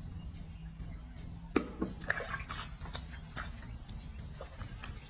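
Bathing sounds from a baby monkey being washed in a ceramic sink: small splashes of soapy water, a brush and hands rubbing wet fur, and light clicks, with one sharp knock about a second and a half in, over a low steady hum.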